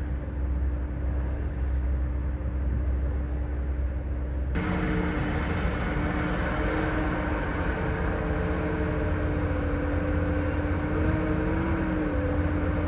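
Diesel engine of heavy construction machinery running steadily. About four and a half seconds in, the sound switches abruptly to a brighter, noisier engine sound.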